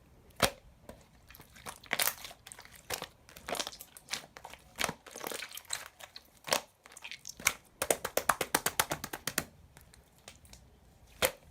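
Red clear slime being squished and poked by hand, making sticky clicking and popping sounds from trapped air. Single sharp pops are broken up by quick runs of clicks, the longest a little after the middle of the clip.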